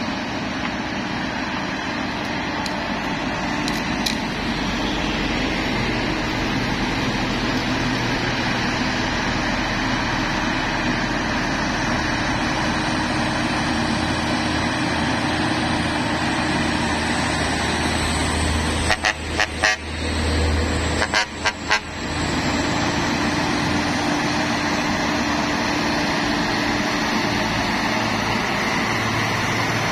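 Diesel engines of loaded Mitsubishi Fuso heavy cargo trucks labouring up a hill grade, a steady low drone. About two-thirds of the way through, the sound breaks into two quick runs of rapid on-off pulses.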